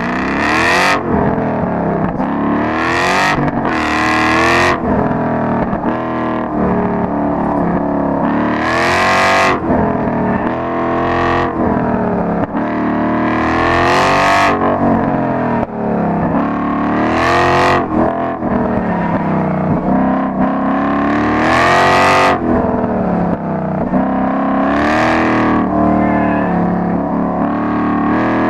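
Car engine being driven hard around a cone course, revving up and down over and over: the pitch climbs under acceleration and drops when the driver lifts or brakes, roughly every three to five seconds.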